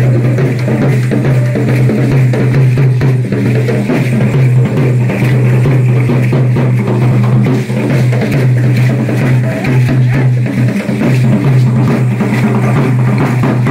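A double-headed dance drum beaten in a steady, fast rhythm for a matachines dance, the hits coming in an unbroken run.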